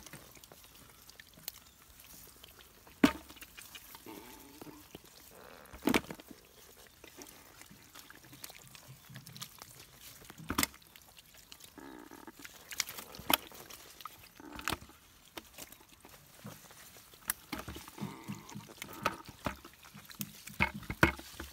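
Catfish splashing and slapping in shallow muddy water while they are grabbed by hand, with scattered sharp wet slaps, the loudest about three and six seconds in.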